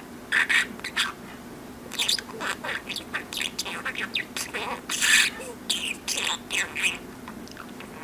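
Talking budgerigar chattering in quick, high-pitched bursts of warbles and chirps mixed with mimicked speech-like sounds.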